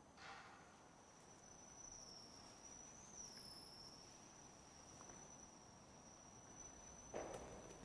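Near silence: room tone with a faint, steady high-pitched whine. There is a soft shuffle or knock just after the start and a slightly louder one near the end.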